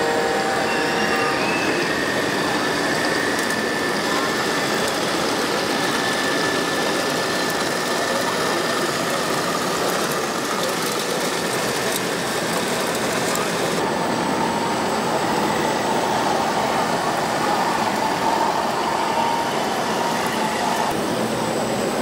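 Steady hubbub of a busy hall mixed with the running of 1:8-scale radio-controlled construction models, with faint whining tones rising above it now and then.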